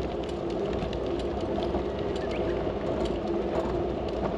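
Bicycle freewheel ticking as the bike coasts, over a steady hum of tyres and wind.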